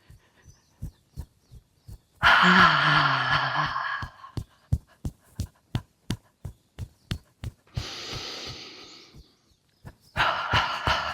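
Rhythmic thumping of heels dropping onto the floor, about three times a second, during qigong shaking. Over it a woman breathes out a long, breathy healing sound with a low, falling voice, breathes in, then begins another breathy exhaled sound near the end.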